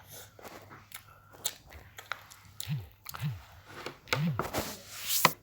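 Fidget toys being played with by hand: irregular soft pops and clicks, with a louder cluster of clicks near the end.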